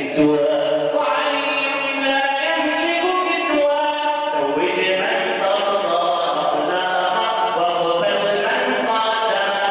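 A man singing an Islamic nasheed through a microphone, holding long notes that bend up and down in pitch.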